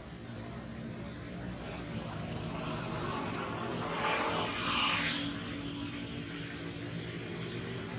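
Steady engine drone from a passing motor vehicle or aircraft, swelling louder about four to five seconds in.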